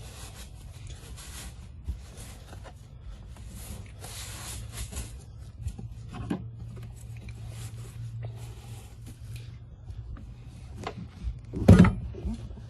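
Hand rubbing and scrubbing from cleaning debris out of a car's fuel tank pump opening, in short passes, with a few small clicks and one loud, sharp knock near the end.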